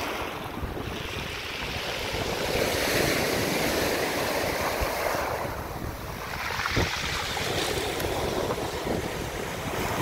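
Sea surf washing onto the shore, swelling and easing twice, with strong wind buffeting the microphone.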